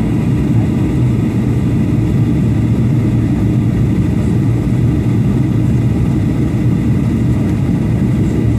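Aircraft in flight: a steady, loud low rumble of engine and airflow noise, with faint steady whining tones above it.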